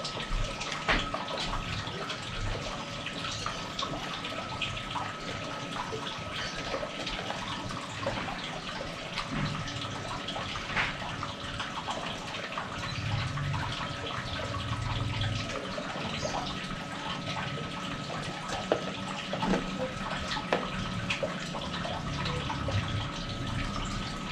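Small, faint clicks and rattles of lead air-rifle pellets being picked from a metal pellet tin and pushed one by one into a Marauder rotary magazine, over a steady hiss with a faint high hum.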